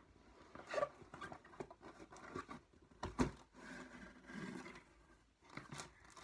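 Small cardboard box being opened by hand: scattered scrapes, taps and rustles of cardboard, with one sharper knock about three seconds in.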